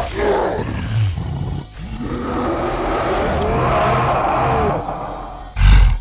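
Cartoon creature roaring and growling in long, gliding calls, then a single heavy, deep thud near the end.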